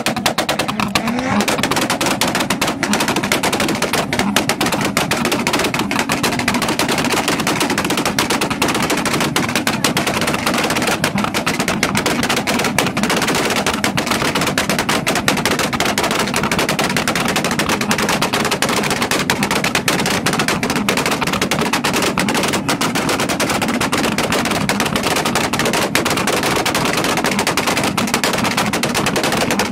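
Tuner cars, a yellow Mazda RX-7 among them, held on a two-step launch-control rev limiter. The exhausts give a loud, rapid, unbroken crackle of backfire pops and bangs, like machine-gun fire.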